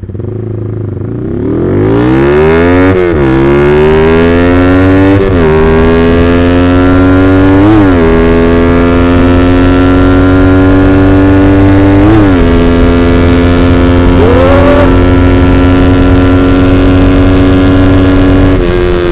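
Motorcycle exhaust note through a WRX GP5 aftermarket muffler (25 cm, half baffle), accelerating hard through the gears. The engine pitch climbs, dips at four upshifts, then holds near-steady at speed before easing off near the end.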